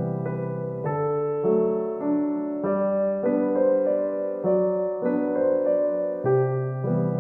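Background music: a gentle piano or electric-piano tune with chords changing about every half second over a bass line.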